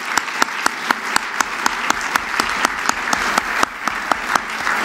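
Audience applauding: a sustained round of clapping from a crowd, with some single claps standing out sharply above the rest.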